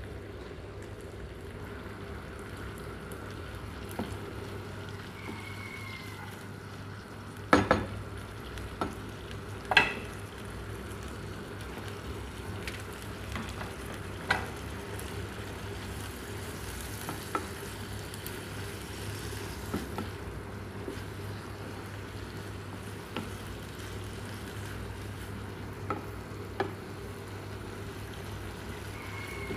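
Shrimp and vegetables sizzling in a frying pan while being stirred, with a utensil knocking sharply against the pan now and then; the loudest knocks come in a cluster between about eight and ten seconds in.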